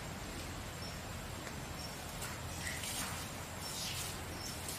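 Outdoor ambience: a steady low hiss with faint, short high chirps about once a second, and a brief soft rustle about three and a half seconds in.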